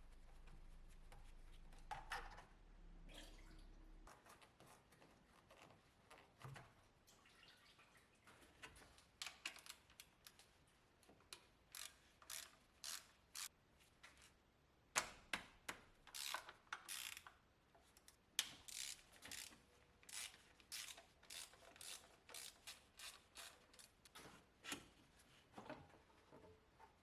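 Faint, irregular clicks and taps, a few a second, from hand tools working on a car engine.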